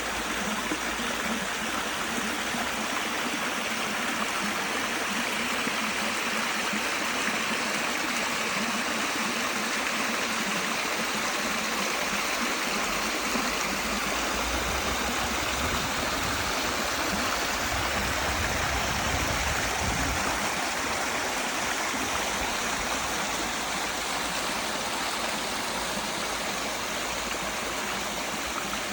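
Forest stream running over rocks, a steady rush of water with some gurgling.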